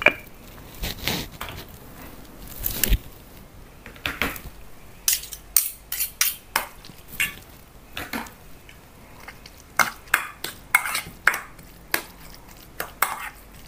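Metal spoon scraping and clinking against a stainless steel mixing bowl while a soft tofu filling is stirred, in irregular strokes.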